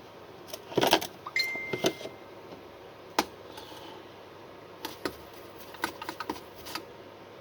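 Scattered light clicks and taps of small metal tools and parts being handled while soldering a car key fob's circuit board, with a brief thin high tone about a second and a half in.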